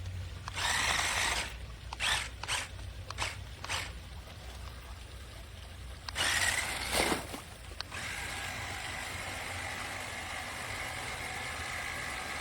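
Small electric motor of a toy RC monster truck being driven: short bursts of motor whir and scuffing in the first half, then running steadily from about eight seconds in.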